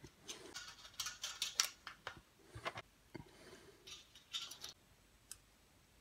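Scissors and forceps clicking and scraping against the thin resistance wire of a hair dryer's heating element as the broken wire ends are twisted back together. This is the repair of the break that left the dryer blowing only cold air. The clicks and scratches come irregularly, clustered in the first five seconds.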